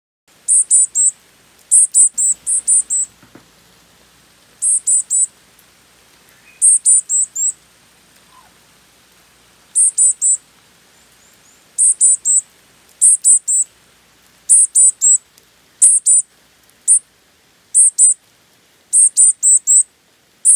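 Varied tit calling: short, thin, high-pitched notes in quick clusters of two to four, repeated every one to three seconds.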